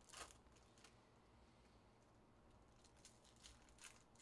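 Near silence, with faint rustles of a trading-card pack wrapper being handled: a short one right at the start and a few small ones near the end.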